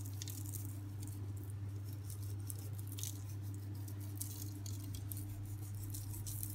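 A steady low hum under scattered faint clicks and rustles.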